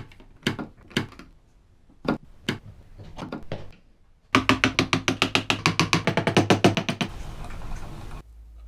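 Wooden model truck parts knocking and clicking as they are handled, with a few separate sharp knocks at first. About halfway through comes a fast, even run of rattling strikes lasting nearly three seconds, followed by a short hiss.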